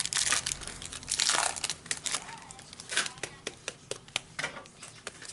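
Trading card pack wrapper being torn open and crinkled, with two rustling bursts in the first couple of seconds followed by a string of sharp crackles as the packaging is handled.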